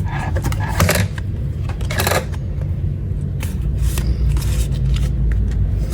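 Pokémon trading cards being handled close to the microphone: two brief rustling swishes in the first two seconds and a few light clicks over a steady low rumble of handling noise.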